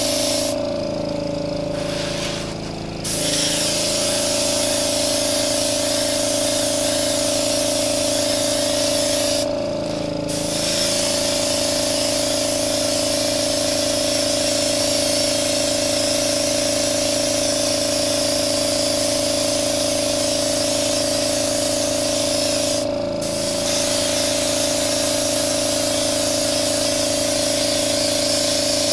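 Airbrush spraying paint in a light mist with a steady hiss, over the constant hum of its air compressor. The spray cuts out briefly three times, about a second in, around ten seconds and near twenty-three seconds, and the hum sags each time.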